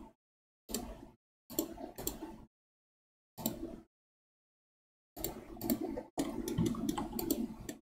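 Computer mouse and keyboard clicks picked up by the desk microphone in short bursts, cut to dead silence between them, busiest over the last three seconds.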